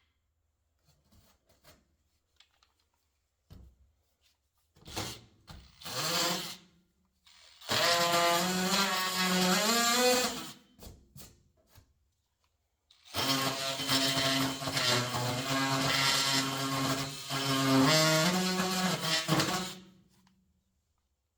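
DeWalt oscillating multi-tool running in two cuts of about three and six seconds, its whine shifting in pitch as the blade loads in the floor sheet, with a few short starts before them.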